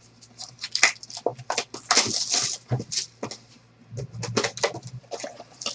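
Plastic shrink wrap crinkling and tearing as a sealed box of baseball cards is unwrapped, with scattered clicks and crackles from handling the cardboard box and its packaging; a denser burst of crinkling comes about two seconds in.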